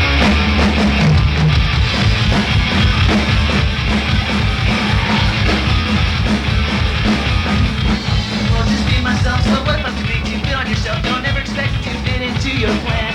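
Live punk-rock band playing an instrumental intro: drum kit, bass and electric guitar, loud and driving.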